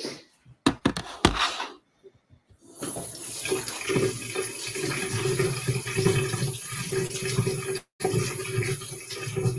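A few knocks, then from about three seconds in a kitchen mixer tap runs steadily into the sink while hands are washed under it. The sound drops out for a moment near the end.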